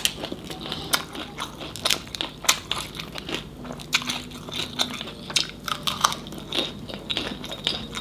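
Crunchy chewing close to the microphone: a lettuce wrap of whole tôm nhũi (small shelled crustaceans) being bitten and chewed, with many irregular crisp snaps and crackles.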